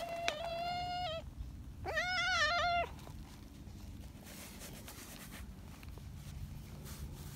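Brown tabby cat meowing twice with a drawn-out "nyahhaan" call. The first long, level meow ends about a second in; a second, wavering meow follows about two seconds in.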